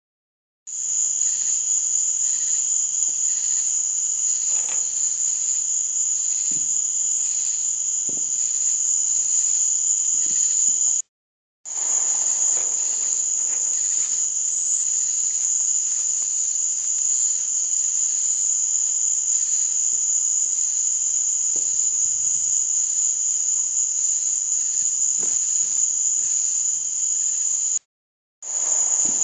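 Night insects chirring in a steady high-pitched chorus with an even pulse, with a few faint thumps under it. The sound cuts out completely for a moment twice.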